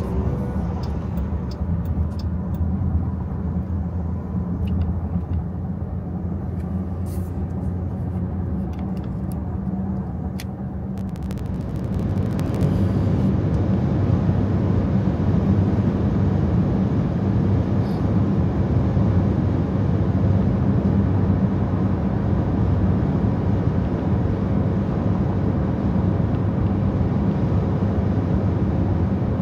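Car driving on a highway, heard inside the cabin: a steady low drone of engine and tyre-on-road noise, which grows louder and rougher about twelve seconds in.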